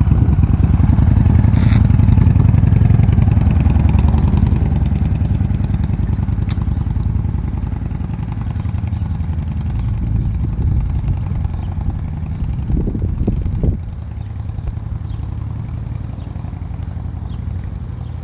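Cruiser motorcycle engine running close by, then pulling away and fading as it rides off down the street. A brief rise in engine sound comes about three-quarters of the way through, and the engine is quieter after it.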